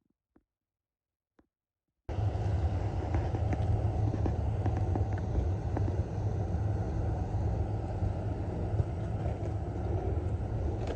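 Near silence with a couple of faint clicks, then about two seconds in a steady low rumble of a moving vehicle starts abruptly, with scattered light clicks and knocks over it.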